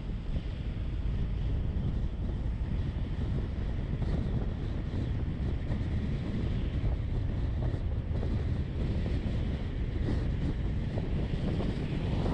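Steady low rumble of a vehicle under way, its engine and tyres running on the road, with wind noise on the microphone.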